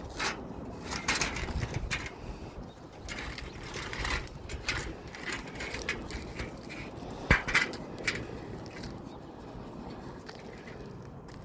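Swamp cooler side panel being handled and fitted into its frame: scraping and rattling knocks, with one sharp knock about seven seconds in.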